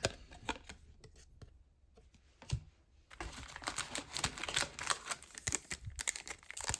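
A few light clicks of trading cards being handled. Then, from about three seconds in, a dense, fast crinkling of a card pack wrapper being handled.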